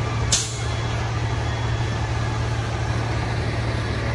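Steady low drone of a fire engine's engine running at the scene, with one brief hiss about a third of a second in.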